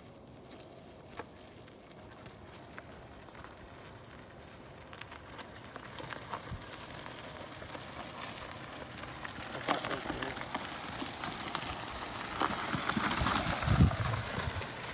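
Tyres of a BMW R1250GS Adventure crunching over loose dirt and gravel as the heavy motorcycle rolls down a steep slope with its engine off. The crunching is faint at first, grows as the bike comes nearer, and is loudest from about ten seconds in.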